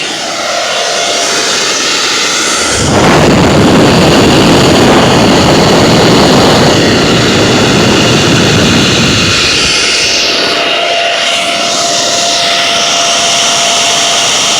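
SEAFLO 4-inch in-line bilge air blower, a 12 V DC motor spinning a six-blade fan, running flat out off a car battery: a loud, steady rush of air with a whine. About three seconds in, a much heavier, deeper rushing sets in. It lasts some six seconds, then eases back to the plain whine.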